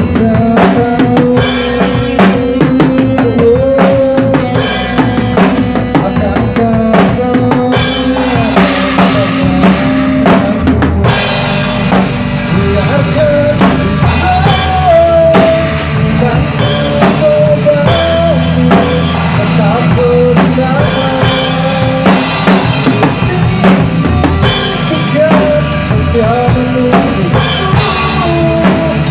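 Acoustic drum kit played hard, with kick drum, snare and crash cymbals, over a recorded song that carries a sustained melody line.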